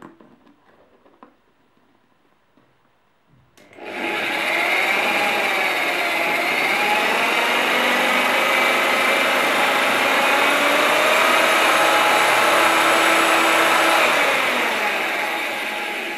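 Corded electric drill starting about three seconds in and running steadily, its bit boring through the fused cord insulation inside a hair clipper's plastic cord sleeve held in pliers. Its whine wavers in pitch as the bit bites, and it eases off near the end.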